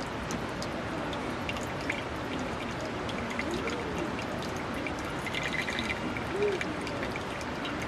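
Heavy rain falling steadily, with many small sharp ticks scattered through it.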